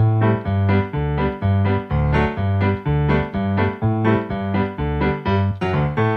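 Background music on an electric keyboard: steady chords over a repeating bass note, about two notes a second.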